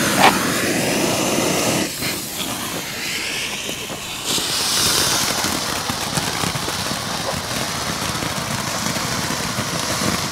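Single-tube firework fountains spraying sparks with a steady hissing rush, with a few sharp pops.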